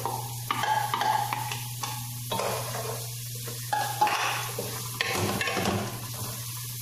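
Chopped onion sizzling as it fries in hot olive oil and garlic in an aluminium pressure cooker, stirred with a wooden spoon that scrapes and knocks against the pot a few times.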